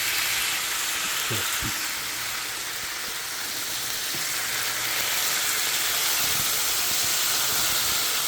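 Marinated bulgogi beef sizzling steadily in an oiled frying pan, with a couple of light knocks about a second and a half in.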